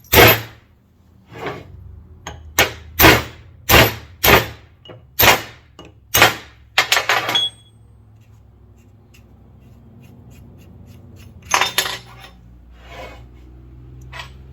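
Hammer blows on a chisel set against the Trans Am steering gear box, metal on metal, knocking a threaded part around to loosen it so it can be unscrewed. About ten sharp strikes come in the first seven seconds or so. After that there are only quieter handling sounds, with a short flurry of knocks about twelve seconds in.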